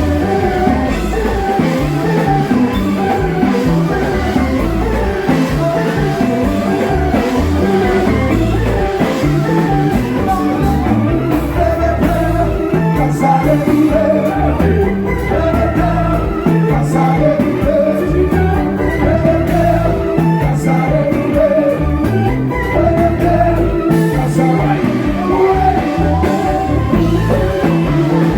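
Loud music with a steady beat, guitar and a singing voice.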